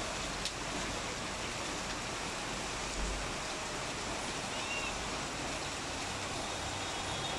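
Steady hiss of rain falling over the city, with one sharp click about half a second in.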